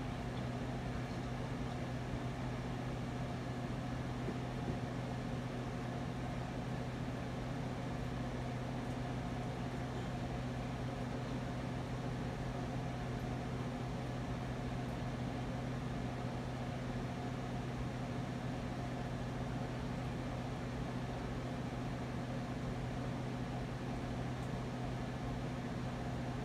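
Spirit box sweeping through radio frequencies, giving a steady hiss of static with a low hum underneath.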